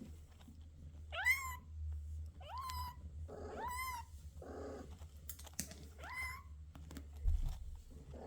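Two-week-old Bengal kittens mewing: four short, high cries, each rising in pitch and then levelling off, with a couple of softer, lower sounds between them.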